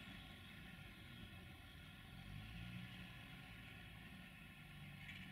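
Desiro VT642 diesel multiple unit standing with its diesel engine idling, a faint low hum with a few steady tones that shift slightly.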